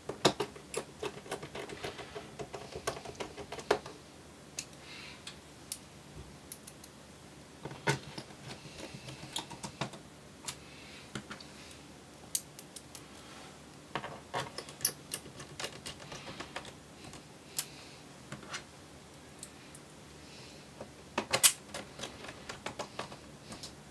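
Small Phillips screwdriver driving screws into a laptop's base panel: bursts of quick light clicks and ticks as each screw is turned and seated, with short pauses between, the loudest burst near the end.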